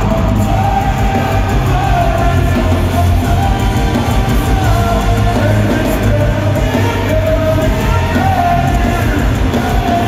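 Rock band playing live and loud, a singer's held, wavering vocal line over distorted guitars and drums.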